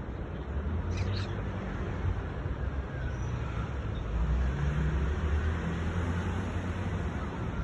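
Steady low rumble of street traffic, with a few faint meows from a tabby cat.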